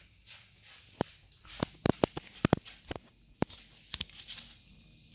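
Chihuahua chewing a chicken bone among crumpled tissue paper: a run of sharp crunches and clicks, thickest between about one and four seconds in, with light paper rustling.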